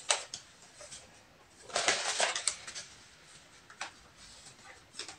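Paper banknotes being counted by hand: crisp rustling and flicking of the bills, with a denser burst of rustling about two seconds in and single snaps of paper now and then.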